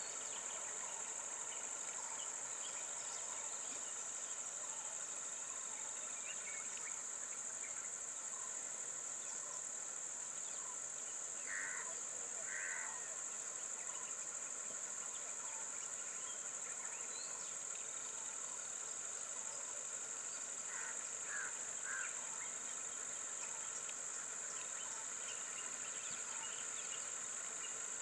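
Steady, high-pitched drone of a chorus of insects. A few short calls cut through it, two about halfway through and three more a little later.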